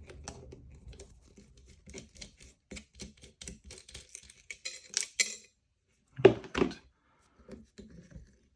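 Small metal clicks and clinks of a 5-pin USPS PO Box cam lock being taken apart by hand, the cam and parts knocking against each other and the tools. There are two louder knocks a little past the middle, then a few softer clicks.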